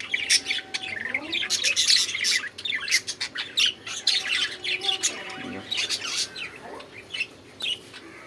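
A pet bird squawking and chirping: a rapid series of short, harsh calls, thickest in the first few seconds and thinning out near the end.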